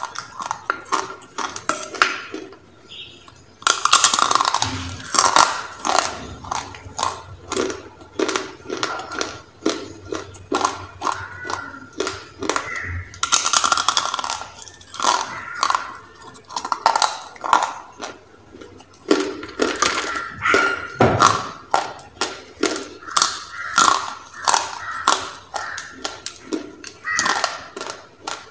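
Crunchy bites into dry rolled clay and close-up chewing, a quick run of crackling crunches at roughly two a second. A few harder bites stand out as louder, denser crackles, about four seconds in, again near the middle and at about two-thirds of the way through.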